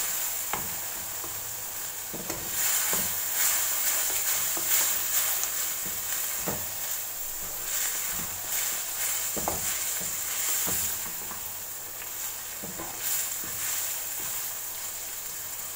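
Minced beef sizzling as it fries in a nonstick wok, stirred with a wooden spatula that scrapes and knocks against the pan at irregular intervals. The sizzle grows louder a couple of seconds in and eases a little in the second half.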